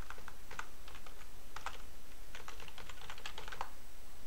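Computer keyboard keys clicking as a command is typed: a few scattered keystrokes at first, then a quick run of them in the second half.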